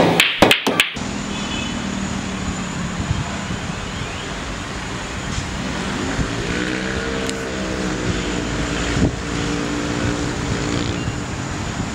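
Steady street traffic noise, with a few sharp clicks in the first second. About six seconds in, a passing vehicle's engine rises and then falls in pitch.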